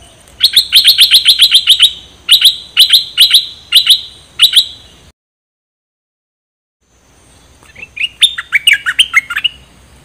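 Caged bulbul (merbah) calling. A fast run of sharp, down-slurred chirps gives way to a few spaced notes. After a short silence comes another quick, lower burst of chirps.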